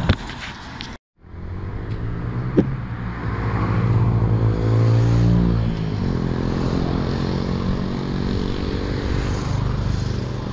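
Engine of a motor vehicle passing on the road beside the bridge: a steady low hum that grows louder and bends in pitch around the middle, then settles. A brief dropout about a second in and a single sharp click shortly after.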